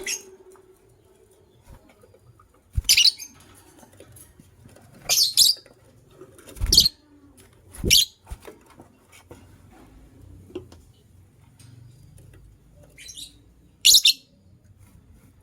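Lovebirds giving short, sharp high-pitched chirps, about seven in separate bursts with pauses of one to several seconds between them.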